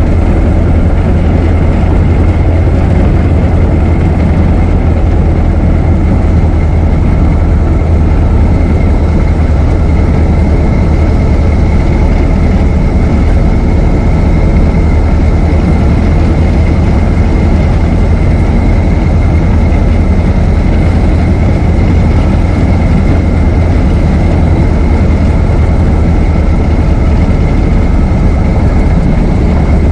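Ford Model T's four-cylinder side-valve engine running steadily as the car is driven, a deep, even drone with a faint high whine above it.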